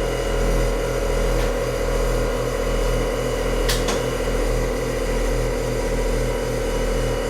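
Air-ride suspension air compressors running steadily, building pressure in the air tank that feeds the air bags and air horn. One sharp click nearly four seconds in.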